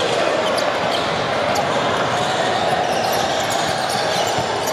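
Basketball dribbled on a hardwood gym court during play, with short high sneaker squeaks and a steady din of voices echoing in the hall.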